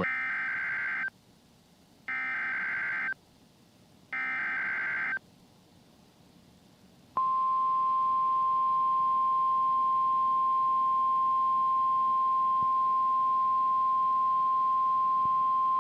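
NOAA Weather Radio Emergency Alert System SAME header: three one-second bursts of buzzing digital data tones, about a second apart. After a pause of about two seconds comes the single steady 1050 Hz warning alarm tone, held for about nine seconds, marking the Required Weekly Test.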